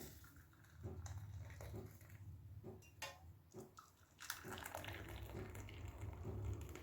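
Hot herbal drink being strained into two cups: faint dripping and trickling, with several light clicks and clinks of the strainer and cups.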